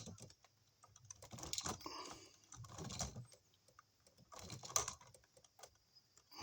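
Two bare copper ground wires being twisted together with pliers: faint, irregular clicking and scraping of metal on metal in short bursts.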